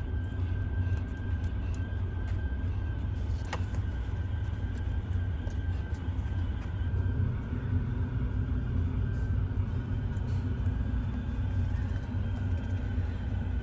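Steady low rumble with a faint, steady high tone and a few small clicks.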